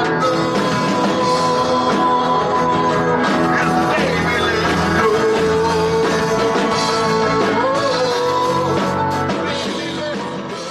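Rock band playing, with singing and guitar lines, fading out near the end.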